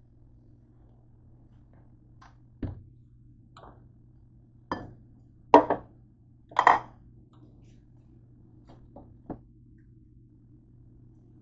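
Knocks and clatters of a handheld camera being moved about and bumped on a kitchen counter, the loudest two in the middle, over a steady low hum.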